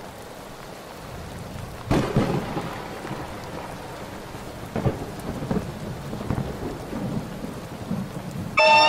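Steady rain with rolls of thunder, the first loud clap about two seconds in and more rumbles a few seconds later. Distorted electric guitar cuts in right at the end.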